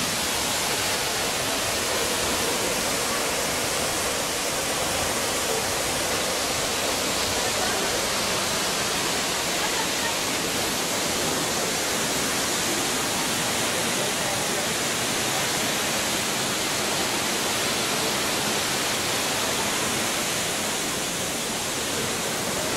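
Düden waterfall: a steady rush of falling water, even throughout.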